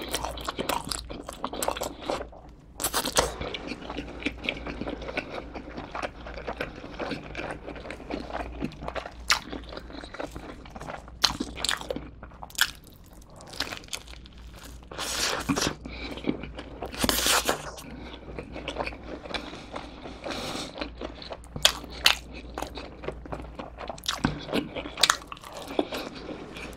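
Close-miked eating sounds: a person biting and chewing pepperoni cheese pizza, with irregular crunches from the crust and wet chewing.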